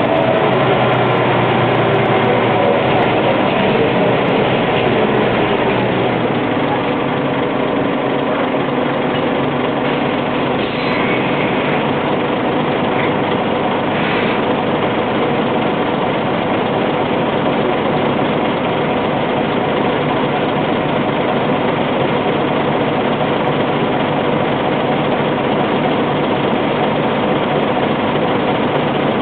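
Scania N94UB single-deck bus's diesel engine and road noise heard from inside the passenger cabin as it drives. The engine note falls over the first few seconds, then settles into steady running.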